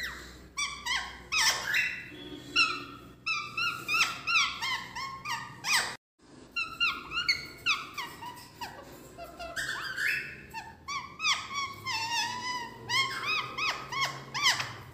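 Indian ringneck parakeet hen chattering in a rapid string of short, rising-and-falling squawky chirps, with a brief break about six seconds in.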